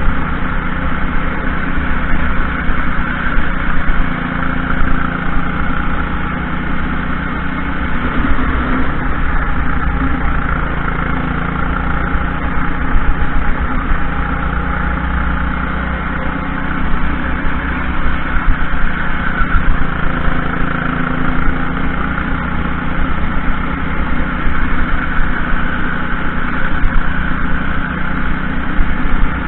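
Junior racing kart's engine running hard through a lap, its revs rising and falling through the corners and straights.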